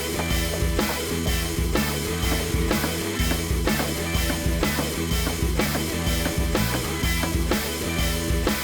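Background rock music with drums, a steady beat and a bass line.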